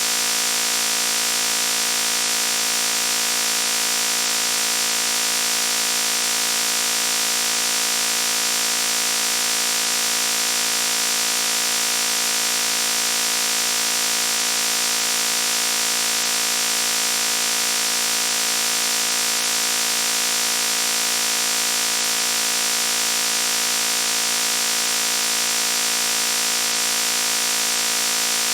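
A loud, harsh buzzing noise, steady and unchanging, with a bright hiss on top.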